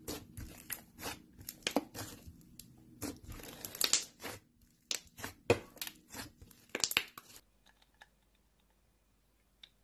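Thick yellow slime being pressed and squeezed by hand, giving an uneven run of sticky clicks and pops. The pops stop about seven seconds in, leaving only a faint hum.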